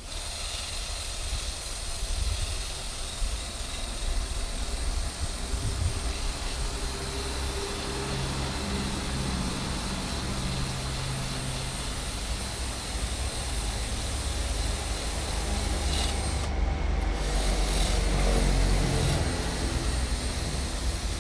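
Urban street traffic: a motor vehicle's engine running and passing, with a low rumble throughout and getting louder toward the end.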